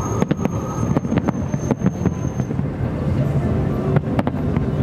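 Aerial fireworks going off: a string of sharp bangs from shell bursts, irregularly spaced and thickest in the first half, over a steady low rumble of background noise.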